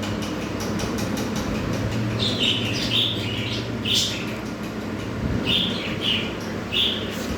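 Pied budgerigars chirping in short repeated calls, in several clusters, over a steady low hum.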